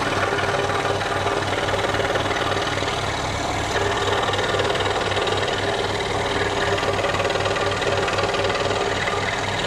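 Scroll saw running steadily with a fast, even pulsing, its reciprocating blade cutting puzzle pieces from a photo-faced board.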